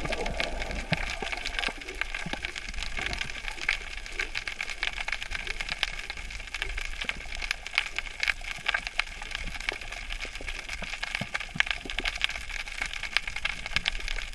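Underwater reef ambience heard through a camera in the water: a dense, irregular crackle of many small clicks over a steady low hum.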